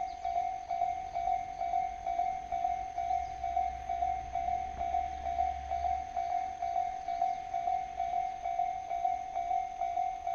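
Japanese railway level-crossing warning bell ringing steadily, a single clanging tone at about three strikes a second. A low rumble runs underneath and stops about six seconds in.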